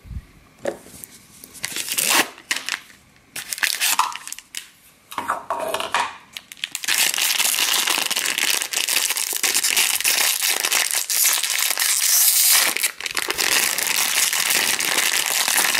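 Foil blind-bag packet crinkling as it is handled and torn open: scattered crackles for the first several seconds, then steady dense crinkling from about seven seconds in, with a brief pause near the end.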